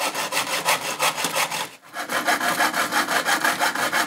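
Hacksaw cutting through a small copper plate in quick back-and-forth strokes, with a brief pause about two seconds in.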